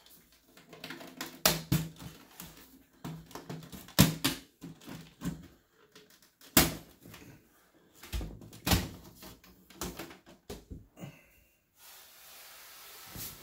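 Side panel of a PC tower case being handled and taken off: a run of sharp clicks and knocks, then a steady hiss near the end.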